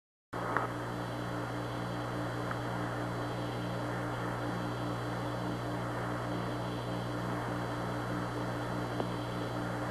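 Hiss and steady low hum of the Apollo 11 air-to-ground radio downlink from the lunar surface, with faint evenly pulsing tones underneath and a couple of small clicks; it starts abruptly just after the beginning.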